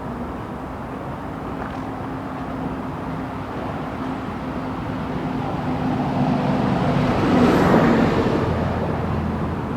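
A diesel train passing slowly: a steady engine drone under a growing rumble that is loudest about three-quarters of the way through, then eases off.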